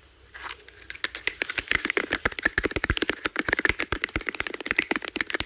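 Rapid tapping on cups as an ASMR trigger, many quick taps a second, faint at first and getting louder about a second and a half in.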